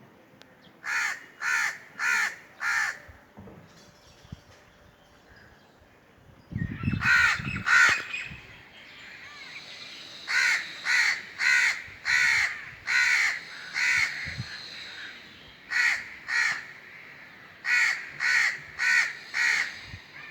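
Crows cawing in runs of short, harsh calls: four caws, then a loud pair with a low rumble beneath them about seven seconds in, then a longer run of about seven, and two shorter runs near the end.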